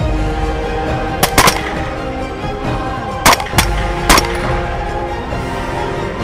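Suppressed LWRC Razorback II rifle in 6.8 SPC firing at hogs over background music. The shots come as sharp cracks: two close together a little over a second in, two more about three seconds in, and one about four seconds in.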